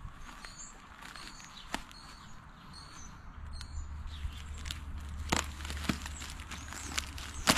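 Plastic packing wrap rustling and crinkling as it is pulled off a sheet-metal tractor hood, with a few sharp snaps, the loudest near the end. Birds chirp faintly in the background.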